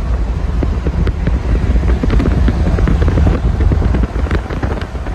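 Wind and road noise in a moving car at highway speed: a loud, steady low rumble with light rattles and clicks.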